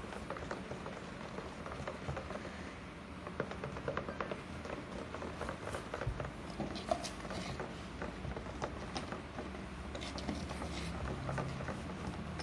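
A thick baking-soda paste being stirred in a container, making irregular small clicks and scrapes.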